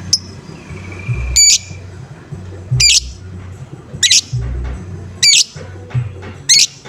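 Lovebird giving loud, harsh 'ngoek' squawks, five in a row about one every second and a bit, the repeated call used to lure and set off other lovebirds. A low background sits under the calls.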